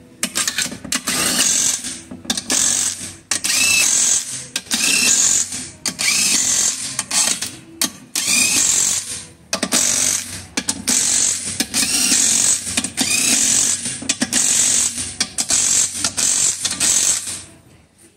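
Low-torque impact wrench running the transmission pump bolts down, a dozen or so short bursts of rapid hammering, several opening with a rising motor whine.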